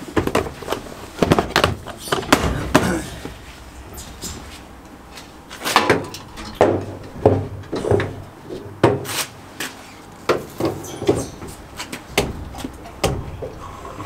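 Irregular clicks and clunks from an AdBlue pump nozzle being worked at a truck's tank, more than a dozen over the stretch; the nozzle's trigger keeps cutting off if pressed fully, so the fill goes in as a slow trickle.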